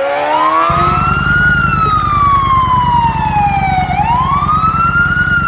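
Police motorcycle siren wailing: one slow rise, a long fall, and a rise again near the end. A low engine rumble joins about a second in.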